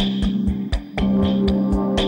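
Background music with a steady beat, about four low thumps a second over a held bass note, dipping briefly just before a second in.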